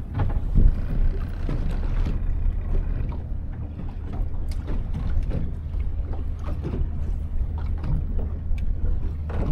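Steady low rumble of wind and water around a small fishing boat at sea, with a few light clicks and knocks.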